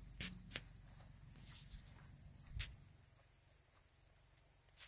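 Crickets chirping in a faint, steady, pulsing high trill, with a few soft clicks and one low knock about two and a half seconds in.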